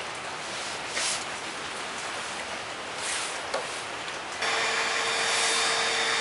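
A 1500-watt heat gun is switched on about four seconds in and runs steadily, a fan rush with a constant whine. Before it starts there is only a steady hiss and a few brief rustles.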